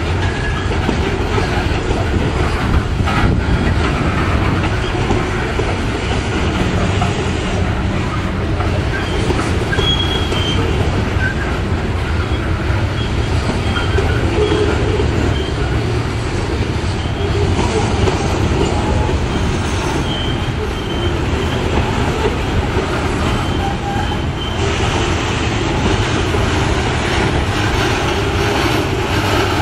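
Loaded steel coal gondolas of a freight train rolling past close by: a steady, loud rumble of steel wheels on the rails, with brief high wheel squeals a few times.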